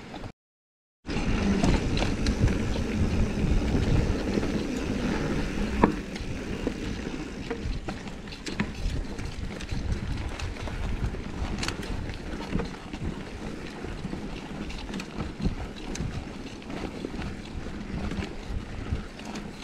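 A mountain bike being ridden on a dirt singletrack trail: wind buffeting the microphone over the rumble of the tyres, with occasional sharp knocks and rattles over bumps. The sound cuts out completely for under a second near the start.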